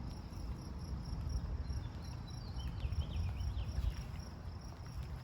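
Crickets trilling steadily in a high, pulsing tone over a low background rumble, with a few short high chirps about two and a half to three and a half seconds in.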